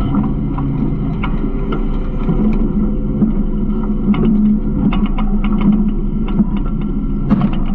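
Garbage truck running with a steady low hum, overlaid by frequent rattles and clanks.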